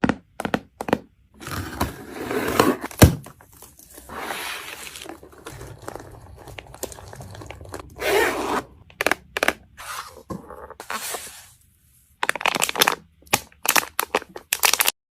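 Makeup kit packaging being handled and torn open: irregular tearing and crinkling with scraping and sharp clicks, and one loud snap about three seconds in. It stops abruptly near the end.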